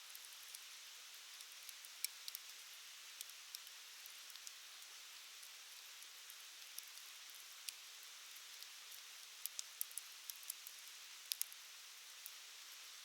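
Wood campfire burning: a faint steady hiss with sharp crackles and pops scattered throughout, coming thick and fast a few seconds before the end.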